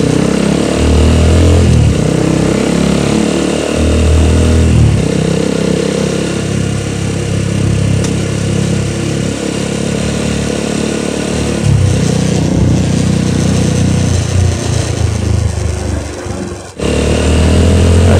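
Motorcycle engine running while riding, its pitch rising and falling with throttle and gear changes. The sound drops out briefly near the end, then the engine comes back louder.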